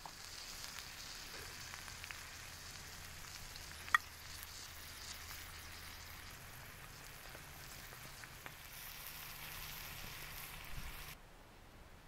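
Kale, carrots and venison heart sizzling in a pan over a campfire, a steady frying hiss with fine crackle and one sharp pop about four seconds in. The sizzling stops abruptly near the end.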